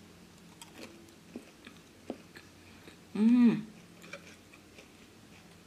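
A person eating rice and fried chicken by hand: quiet chewing with small scattered clicks and smacks, and a short hummed "mmm" about three seconds in that rises and falls in pitch.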